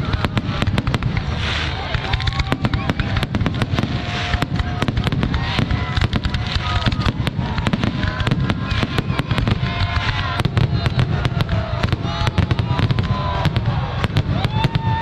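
Aerial fireworks going off in a dense, rapid, unbroken series of bangs and crackles.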